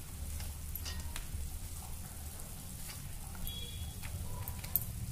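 Soft wet patter and drips from handfuls of soaked puffed rice being squeezed out by hand, with a few light ticks, over a low steady hum.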